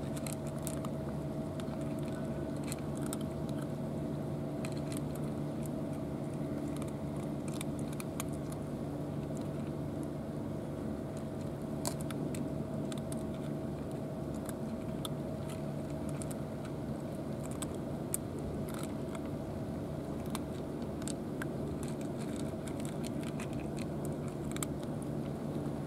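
Two cats crunching dry kibble from food trays: many small, irregular, sharp crunches. Under them runs a steady mechanical hum with a few fixed tones.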